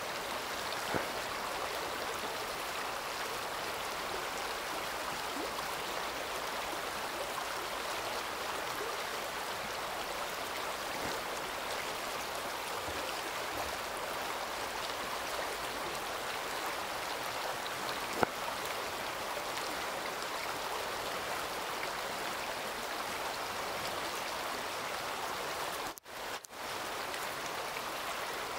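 Shallow, fast stream rushing steadily past the ice edge, an even water noise. A single sharp click stands out about two-thirds of the way through, and the sound briefly cuts out twice near the end.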